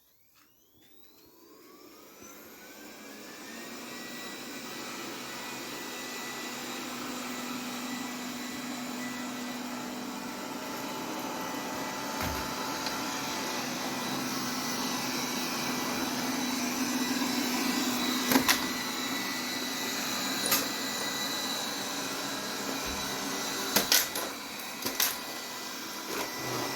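Vacuum cleaner switched on, its motor whine rising as it spins up over the first few seconds, then running steadily. A few sharp knocks come later, once about two-thirds of the way through and twice near the end.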